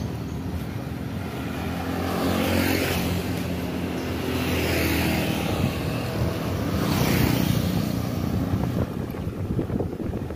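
An engine running steadily with a low drone, swelling louder three times, about two and a half, five and seven seconds in.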